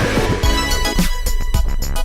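Electronic background music with a steady drum-machine beat and synthesizer tones.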